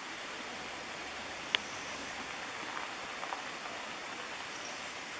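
Steady rushing outdoor hiss, with one sharp click about a second and a half in and two faint ticks a little later.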